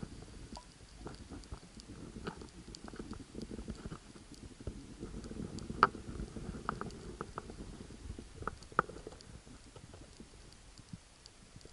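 Muffled underwater noise heard through a camera's waterproof housing: a low, uneven rumble of moving water with scattered sharp clicks and ticks, the loudest about six seconds in and another near nine seconds.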